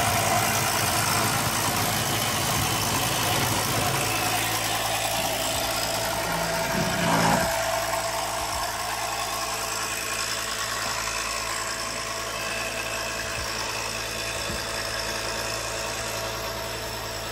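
Automotive smoke machine switched on and running steadily, its pump humming as it pushes smoke into the engine's intake to find a vacuum leak. There is a short louder sound about seven seconds in.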